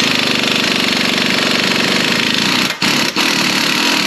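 Impact wrench hammering steadily on a 21 mm lower control arm nut, with two short breaks about three seconds in; the fastener is turning loose.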